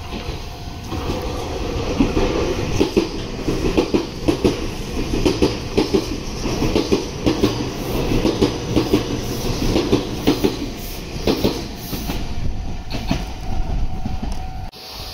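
Red Meitetsu electric train running along the station platform. Its wheels clack over the rail joints in a quick, uneven run under a steady rumble. The clacking fades as the train moves off.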